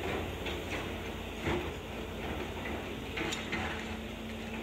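Volvo hydraulic excavator's diesel engine running steadily during demolition. Clanks and knocks of the bucket and concrete rubble sound over it, the loudest about a second and a half in and again just past three seconds.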